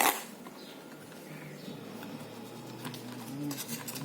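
Packaging of a small USB cable being opened and handled: a sharp snap at the start, then faint rustling and a few light clicks.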